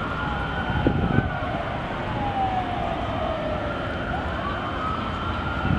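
Emergency vehicle siren wailing, its pitch slowly falling and rising, over a steady low rumble. Two brief low thumps about a second in.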